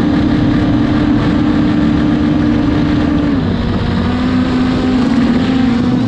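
Quadcopter drone's propellers humming steadily, the pitch stepping down slightly about three and a half seconds in, over low rumbling wind noise on the microphone.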